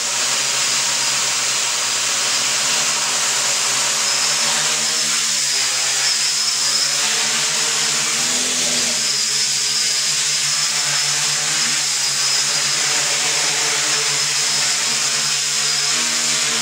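The four brushless motors and propellers of an RCtimer 450 V2 quadcopter run on its maiden hover, lifting it off the floor and holding it just above it. The rotor hum wavers up and down in pitch as the throttle and the flight controller adjust, over a steady high whine.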